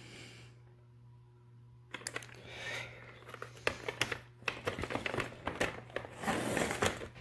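Hard clear plastic display cases of N scale model train cars clicking and rattling as they are handled and set down on a table, with some sliding and rustling. The run of sharp clicks starts about two seconds in.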